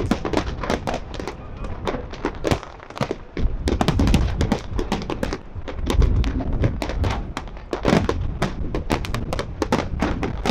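Aerial fireworks display: shells bursting in a dense barrage of rapid, overlapping bangs and crackles over a constant low rumble, with a short lull about a third of the way in.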